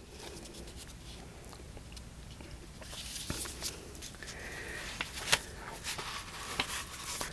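Faint handling noise: soft rustling and scattered small clicks over a low steady hiss, with one sharper click about five seconds in.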